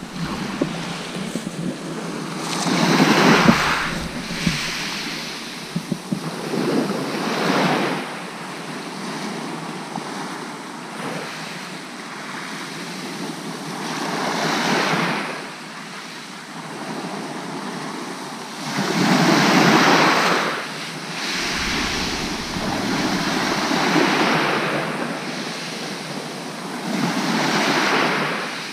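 Sea waves surging and washing back over a shingle beach, swelling and fading every few seconds, with some wind buffeting the microphone.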